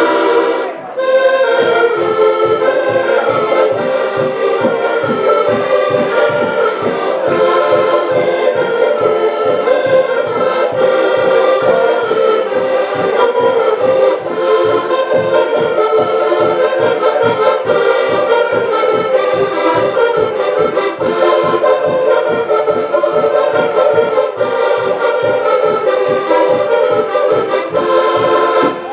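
Accordion ensemble playing a tune in unison over a steady beat. A held chord breaks off about a second in, just before the tune starts.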